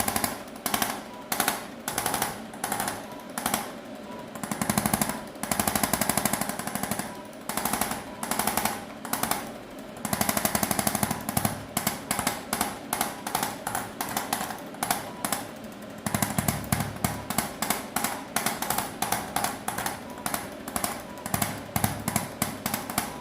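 Handheld percussive adjusting instrument hammering against the back in rapid bursts. The bursts last from a fraction of a second to about two seconds, with short gaps, and come as quicker, shorter bursts in the second half.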